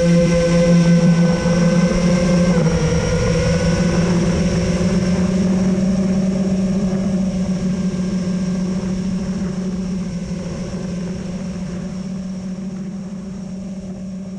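MB Epic 262 FPV quadcopter's brushless motors and propellers humming steadily at cruising throttle, with a slight shift in pitch a couple of seconds in, gradually fading toward the end.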